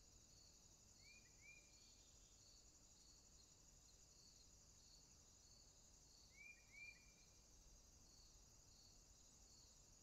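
Faint chorus of insects stridulating in grass: a steady high-pitched buzz, with a softer chirp repeating about twice a second. Twice, about a second in and again after six seconds, a bird gives a short double call.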